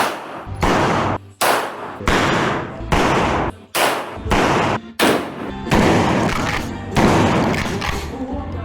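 A series of loud gunshots, about one every three-quarters of a second, each ringing out with a long echo, over background music with a steady low bass.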